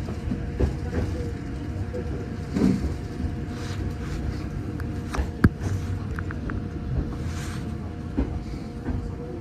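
Passenger train running on rails, heard from inside the carriage: a steady low rumble with a faint steady hum, scattered clicks and knocks from the wheels and car body, and one sharp knock about five and a half seconds in.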